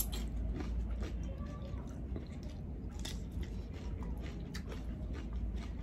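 People chewing pansit canton noodles with the mouth close to the microphone: scattered small wet clicks and smacks.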